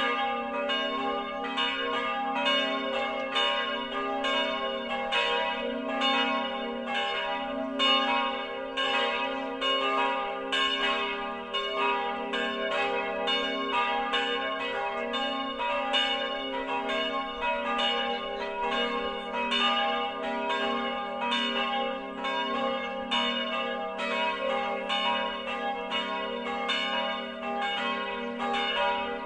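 The church bells of St. Martin's in Fraham, a peal cast in 1950 by Karl Czudnochowsky of Erding and tuned g'–b'–c'', swinging and ringing together. The strikes come several a second and overlap into a continuous peal at a steady level.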